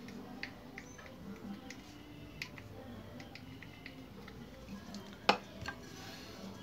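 Scattered small clicks and taps of a plastic glue bottle and fishing rod being handled, with one sharp knock about five seconds in.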